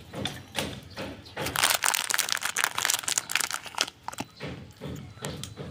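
Crinkling and crackling of a plastic snack packet being handled, a dense run of crackles through the middle, then scattered clicks thinning out.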